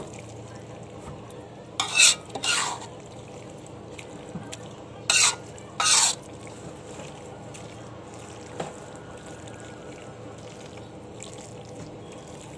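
Shredded filling being stir-fried in a pan and turned with a spatula, with a steady low sizzle and stirring. About two seconds in, and again about five seconds in, it is broken by pairs of short, loud bursts.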